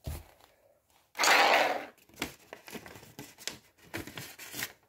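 Close handling noise: one loud rustle lasting under a second about a second in, then light taps and clicks as small objects and paper are moved about.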